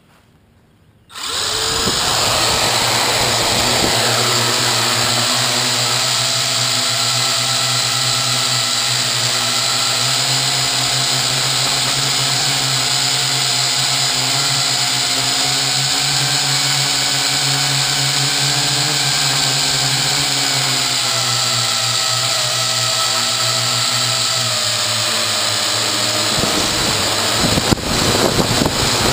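Small toy quadcopter's electric motors and propellers spinning up suddenly about a second in, then running with a steady whine and buzz, heard from the camera mounted on the craft itself. Near the end the sound dips briefly and turns uneven.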